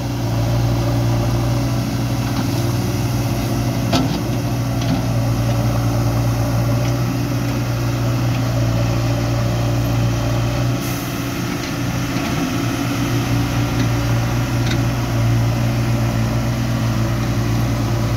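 Heavy diesel engine running steadily with a low, even hum, and a single knock about four seconds in.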